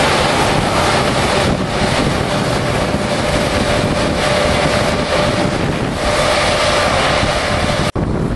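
Claas Lexion 580 TT combine harvester running as it cuts oats close by: a steady machine drone with a constant whine, mixed with wind on the microphone. It cuts off suddenly near the end, giving way to wind noise.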